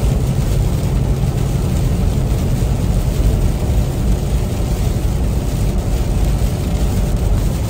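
Steady in-cab noise of a Kenworth T680 semi truck driving on a wet highway in heavy rain: a low engine drone under a hiss of tyres on the wet road and rain.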